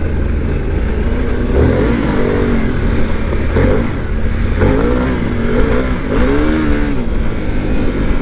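Harley-Davidson Pan America's Revolution Max 1250 V-twin accelerating on a gravel road, its pitch rising and dropping back several times as it shifts up through the gears, over a steady rush of wind.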